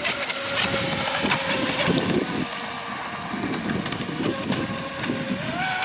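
Electric radio-controlled speedboat running fast across open water, its brushless motor giving a steady whine that rises in pitch near the end as the throttle opens, with wind rumbling on the microphone.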